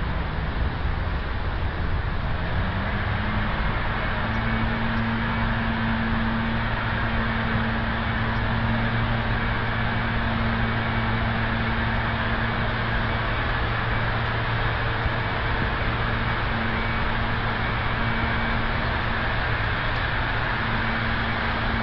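A steady machine hum over a constant rushing noise; the hum rises in pitch between about two and three seconds in and then holds level.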